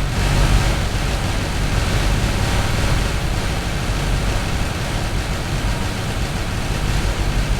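Explosion sound effect: a long, steady, deep rumble with hiss spread across the range, swelling slightly about half a second in.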